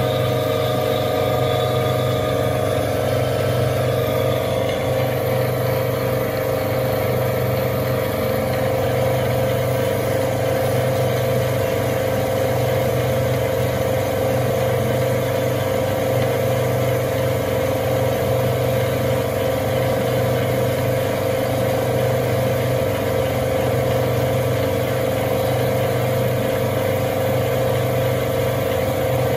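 Small metal lathe running at steady speed, its motor and gearing humming evenly.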